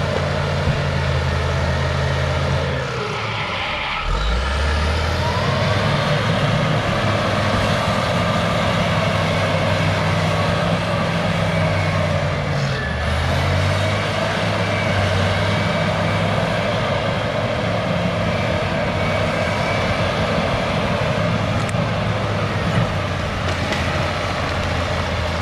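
Cat D6H bulldozer's diesel engine running hard while the dozer pushes, its pitch sagging under load and recovering about 3 seconds in and again about 12 seconds in.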